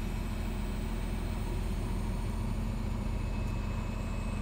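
Diesel tractor engine running steadily, powering the hydraulics that fold a sprayer's booms.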